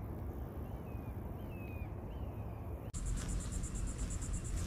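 Outdoor ambience with a low steady rumble and a few short, falling bird chirps. About three seconds in the sound changes abruptly to a steady, high, rapidly pulsing trill of insects.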